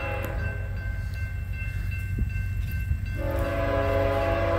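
Air horn of an approaching BNSF ES44DC diesel locomotive sounding a chord for the grade crossing. One blast fades away about half a second in, and a louder, held blast starts about three seconds in. A steady low rumble runs underneath.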